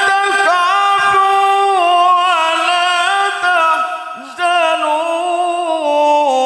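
A man reciting the Quran in the melodic tilawah style through a microphone, holding long, ornamented notes with a wavering pitch that steps down near the end.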